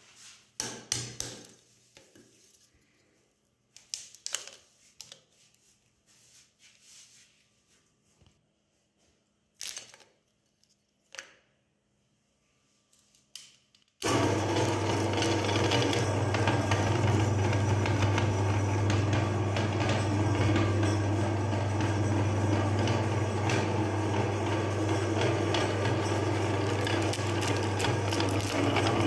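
Scattered knocks and clatter of parts being handled, then about halfway through an electric meat grinder switches on and runs steadily with a low motor hum.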